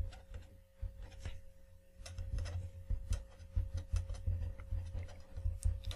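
Felt-tip marker writing on paper: a string of short, irregular scratchy strokes and light taps as the letters go down.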